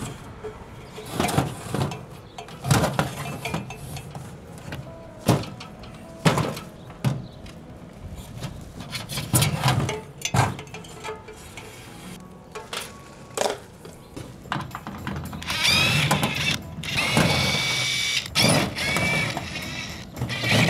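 Scattered knocks and clicks of hand work at the ladder and mount, then near the end a cordless drill runs in a few bursts, its motor whine rising and falling as the trigger is fed.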